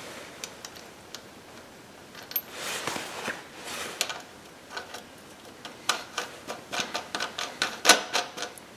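Scattered light clicks and taps of hand tools and hardware being handled at a motorcycle's front wheel, with a couple of short rubbing swishes about three seconds in. The clicks grow busier over the last few seconds, with one louder knock near the end.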